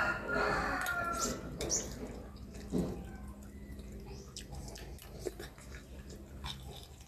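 A rooster's crow trails off in the first second or so. Then come a few short clicks of a metal spoon on a small bowl and wet sounds of a soft boiled balut egg being scooped and eaten close to the microphone.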